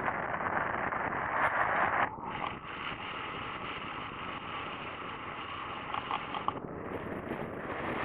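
Wind rushing over a camera mounted on a hang glider in flight: a steady airflow roar that drops abruptly about two seconds in and swells again near the end.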